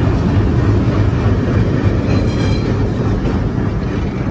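Diesel locomotive rolling slowly past close by: a steady, heavy rumble of engine and wheels on the rails, with a faint high wheel squeal about two seconds in.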